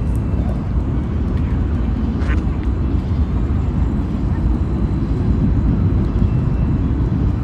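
Steady low outdoor rumble, strongest in the bass, with a faint short higher sound about two seconds in.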